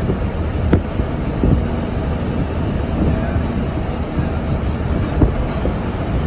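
Road and engine noise of a moving vehicle: a steady low rumble with a few light knocks.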